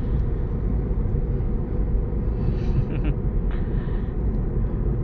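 A steady low rumble of outdoor background noise, with a few faint brief sounds above it.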